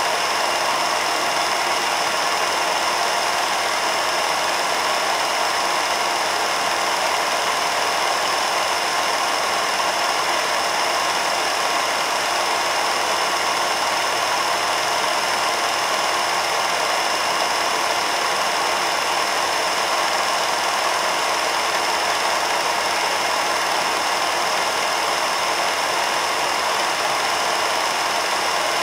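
Home-movie film projector running steadily, an even mechanical whir that does not change.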